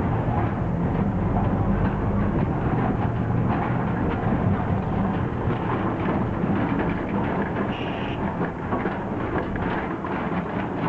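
Auto-rickshaw engine running while under way, with the cab rattling and clattering steadily over a very bumpy road.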